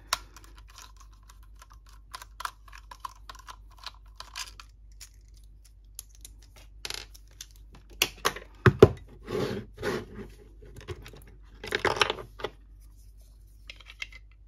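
Plastic casing of a clone power-tool battery pack being worked open: scattered small clicks at first, then a busier run of plastic knocks, crackles and scrapes from about halfway through.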